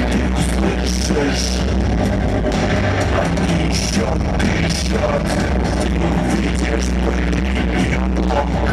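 Loud live band music with a heavy, steady bass and regular drum hits, in an electronic-rock style, with a man singing into a microphone.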